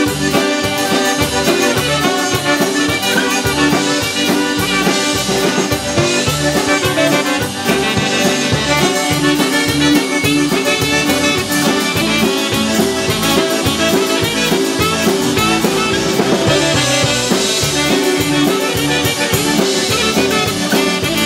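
Live polka band playing a ballroom polka: tenor saxophone and trumpet over electric bass guitar and drum kit, with a steady beat.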